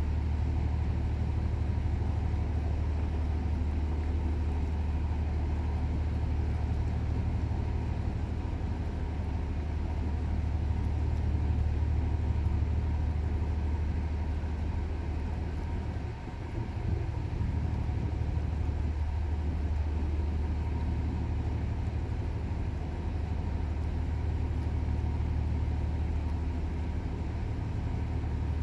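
Steady low drone of a ship's diesel engine running, dipping briefly a little past halfway.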